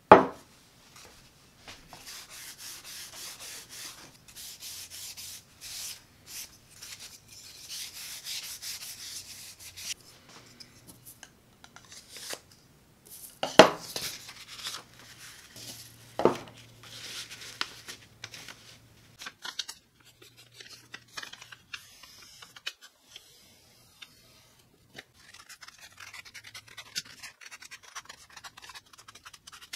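Hand work on a wooden bench: a sharp knock, then several seconds of quick, even rubbing strokes as oil is worked into a wooden sheath liner. Two more sharp knocks follow, then light rustling as a paper template is handled, and scissors snipping paper near the end.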